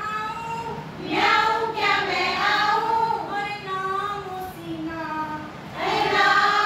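Women's voices singing a Hindi children's poem together in short, high-pitched sung phrases.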